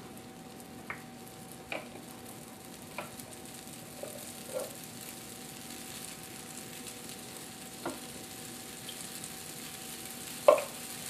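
Waffle batter sizzling in a hot waffle maker, a steady hiss, while a utensil scrapes and knocks against a plastic food processor bowl about six times, the loudest knock near the end.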